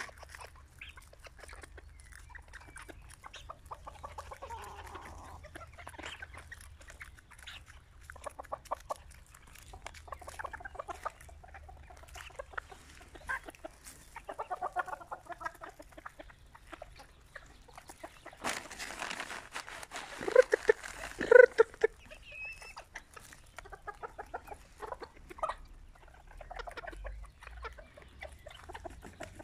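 A flock of Serama bantam chickens clucking softly, with many light ticks of pecking. Louder calls stand out about twenty seconds in.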